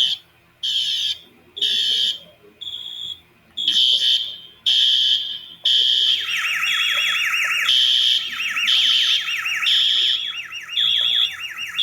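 School fire alarm system sounding: alarm tones pulse on and off about once a second. About halfway in, a second alarm tone joins with a fast, repeating sweep.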